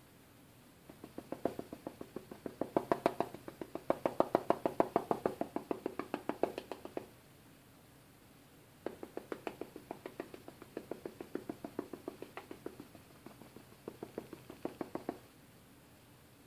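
Paintbrush dabbing paint onto the painting surface in quick taps, about six or seven a second, in two runs of about six seconds each with a short pause between: stippling the blossoms and foliage of a painted bush.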